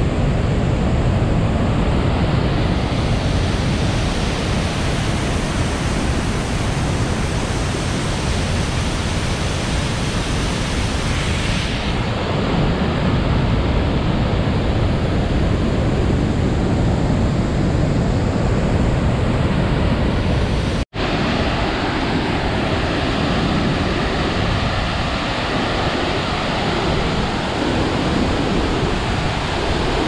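Steady roar of a waterfall in flood, muddy water pouring over rocks and rushing past below. A split-second break of silence falls about two-thirds of the way through.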